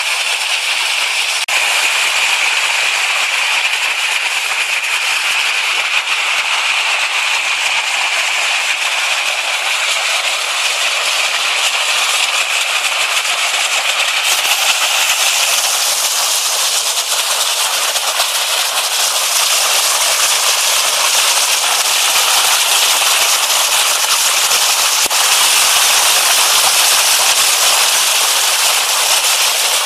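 Mountain stream rushing and splashing over rocks close to the microphone, a steady loud hiss of water. It grows brighter and a little louder about halfway through.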